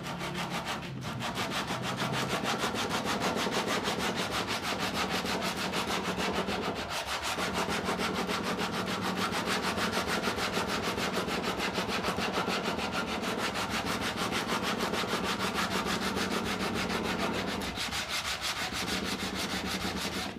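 Hand-sanding with sandpaper along the chamfered edge of a cambará hardwood table leg, in rapid back-and-forth strokes. The sanding clears the splintered edge left by planing.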